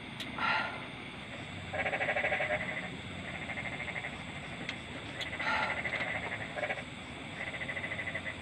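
Frogs calling in a night-time chorus: repeated rattling trills about a second long, each a fast run of pulses. Two shorter, bleat-like calls come in, one near the start and one about five and a half seconds in.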